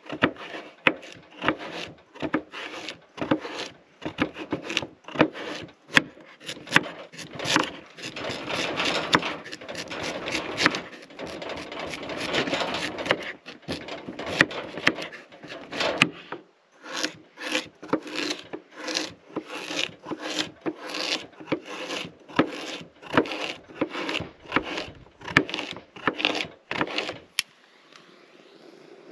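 Chef's knife slicing through sweet potato and knocking on a wooden cutting board: a steady run of strokes about two a second, with denser rasping cuts through the middle. The cutting stops shortly before the end.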